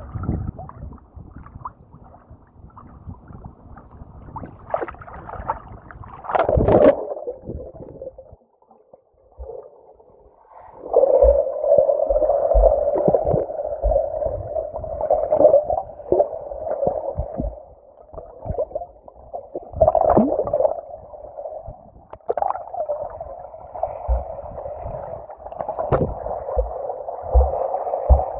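Lake water splashing against the microphone at the surface, with one loud splash. The sound then turns into a muffled, droning underwater rush as the microphone goes under, swelling every few seconds.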